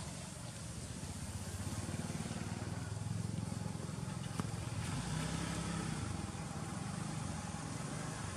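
A motor engine running steadily at low revs.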